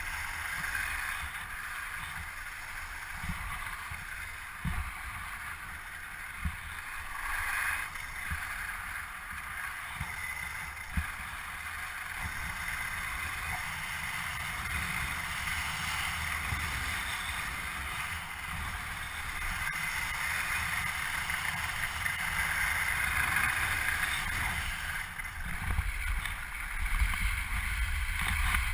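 Kite-pulled ride over crusty snow on lake ice: a steady scraping hiss from the skis or board on the snow, with wind rumbling on the camera's microphone and a few short knocks over bumps.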